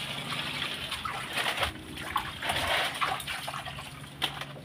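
Water sloshing with small irregular splashes in a metal basin of live fish under a wire-mesh cover, as the fish stir and the basin is handled.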